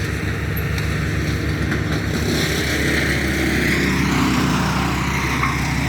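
A machine's engine running steadily with a regular low pulse, its tone shifting slightly about two seconds in.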